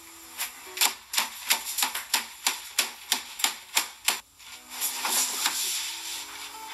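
Rapid snapping chomps: a run of about a dozen crisp clicks, roughly three a second, as a LEGO minifigure bites a croissant to pieces, followed about four and a half seconds in by a rustling, crunching hiss lasting over a second.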